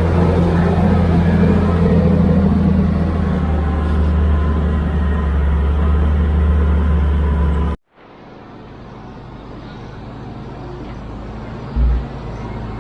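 Heavy machinery engine running steadily with a deep drone, cut off abruptly about eight seconds in. A quieter machine sound then fades up, with a short low thump near the end.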